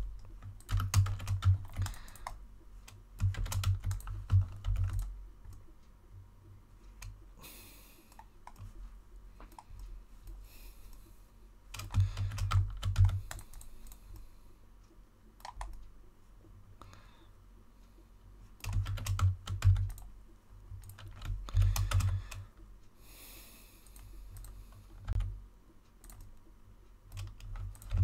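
Computer keyboard being typed on in several short bursts of keystrokes separated by pauses, each burst carrying heavy low thuds.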